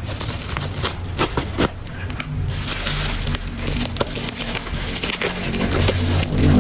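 Scattered sharp clicks and crackles of plastic toy train parts being handled and fitted together, over background music.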